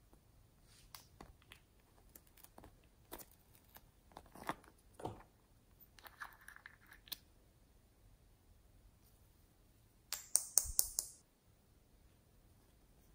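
Small plastic toys and a little glitter jar being handled: scattered soft clicks and rustles, then a quick run of sharp clicks about ten seconds in.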